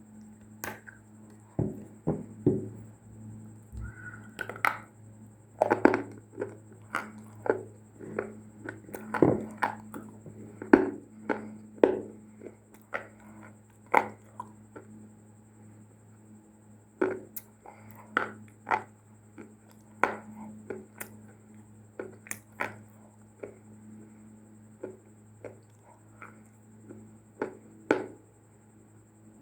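Dry clay being bitten and chewed close up: a run of irregular sharp crunches, densest in the first half and sparser after about two-thirds of the way through, over a steady low hum.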